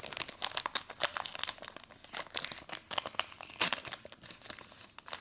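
Foil Pokémon booster pack wrapper crinkling and crackling as it is worked open: an irregular run of sharp crackles and small tears.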